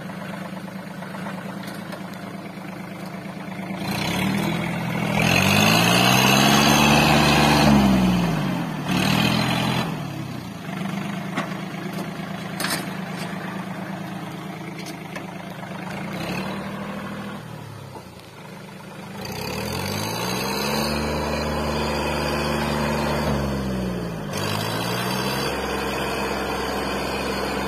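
John Deere compact tractor's diesel engine idling, then revved up twice under load as it struggles to pull its ripper through wet soil, the engine note rising and falling again each time, with a shorter rev in between.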